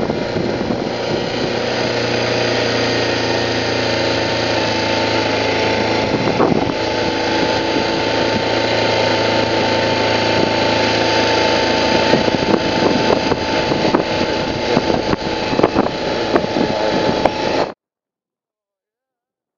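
BMW G650GS single-cylinder motorcycle engine running under way, mixed with steady wind noise on the rider's microphone. The sound cuts off abruptly near the end.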